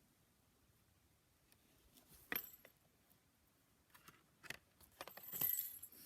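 Small jingle bells shaken as a sleigh-bell sound effect: a single bright jingle a little over two seconds in, then a longer burst of jingling near the end.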